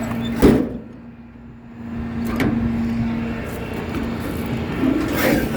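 Truck engine running steadily with a low hum, with a few sharp knocks or bumps: one about half a second in, one a couple of seconds later, and one near the end.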